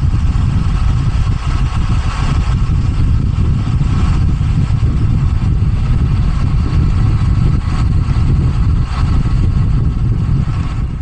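Steady, loud rush of wind buffeting the microphone on a moving bicycle, with road noise underneath.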